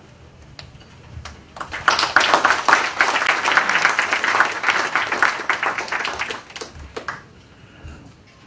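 Seated audience applauding: a few scattered claps, then applause builds about two seconds in and dies away about five seconds later.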